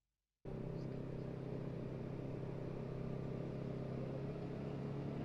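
Dead silence for about half a second, then a vehicle engine running with a steady low hum.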